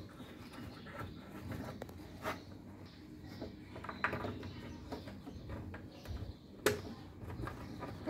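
Scattered light clicks and taps from fingers handling the program selector shaft on the plastic control panel of an Electrolux top-load washing machine, the sharpest one near the end, over low background noise.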